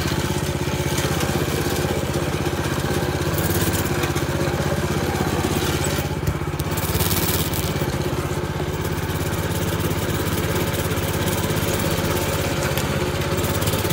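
Baja Warrior 200cc mini bike's single-cylinder four-stroke engine running steadily as the bike is ridden, its pitch holding nearly level throughout.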